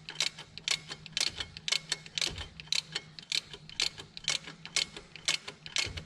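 Ratchet wrench clicking in a steady rhythm, about three clicks a second, as the alternator's 12 mm belt-adjusting bolt is backed out through many turns.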